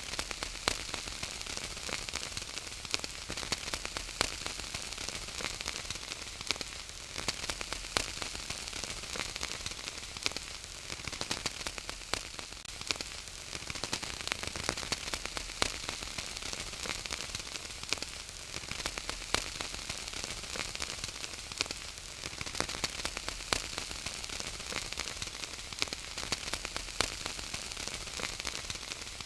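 Wood fire crackling in a fireplace: a steady hiss with many sharp pops and snaps scattered irregularly throughout.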